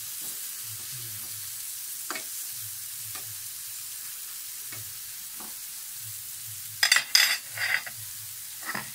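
Hot dogs sizzling on a round slotted grill pan, with light clicks of metal tongs turning them. A few louder sharp sounds come about seven seconds in.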